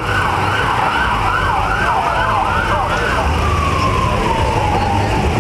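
Emergency-vehicle siren: a falling wail switches to a fast yelp sweeping up and down about three times a second, then goes back to a long, slowly falling wail. A low rumble of car engines runs underneath.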